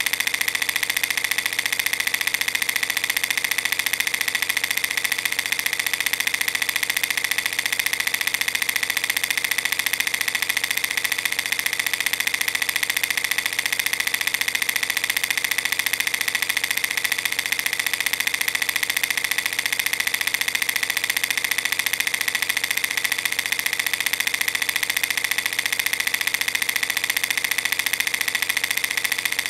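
Film projector running steadily: an even, fast mechanical rattle that does not change.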